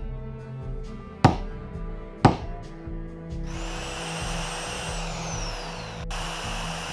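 Two sharp hammer strikes on a steel punch set on a metal bottle cap over a wooden block, then an electric drill starts about three and a half seconds in and runs steadily, drilling a rivet hole through the cap. Background music plays throughout.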